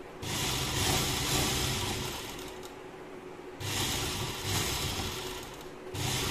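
Sewing machine running a line of topstitching along a fabric sleeve, going in spurts with short pauses between them.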